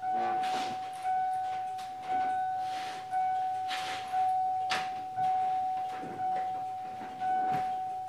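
A pickup truck's warning chime dinging about once a second, each ding fading into the next, while the truck's lighting circuit is switched on to test the taillights. The chime stops at the very end.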